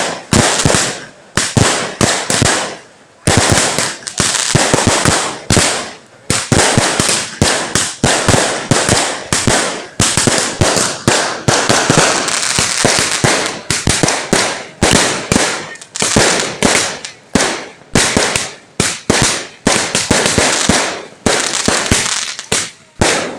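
Firecrackers and fireworks exploding in rapid, irregular succession, several loud bangs a second with a few short pauses between volleys.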